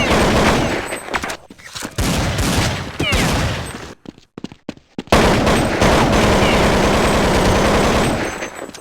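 Farts: a series of loud, rapid sputtering bursts, broken by a near-silent pause about four seconds in, then one long sputter of about three seconds.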